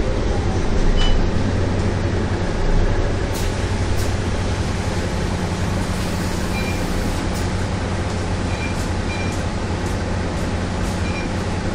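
Mercedes-Benz O530 Citaro city bus heard from inside the cabin: the diesel engine runs with a steady low hum over general cabin noise. A couple of sharp clicks come about three and four seconds in.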